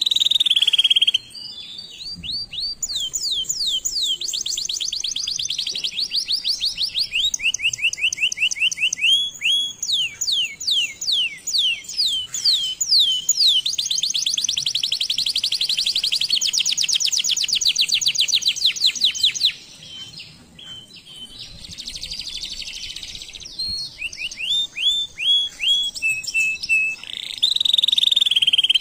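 Domestic canary singing a long song of rapid trills: fast runs of repeated notes, some sweeping down in pitch and others held level, with a quieter stretch about two-thirds of the way through.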